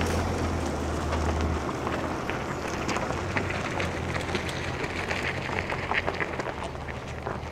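Mercedes-Benz G 350 d's six-cylinder diesel engine running at a slow off-road crawl, a low hum strongest for the first second and a half. Over it come many small crackles and crunches of the tyres rolling over the dirt track.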